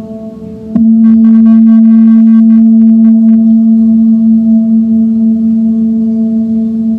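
A singing bowl ringing with a steady low hum and a few higher overtones. About a second in it is struck again and swells louder, with bright higher ringing for a couple of seconds, then it sustains and slowly fades.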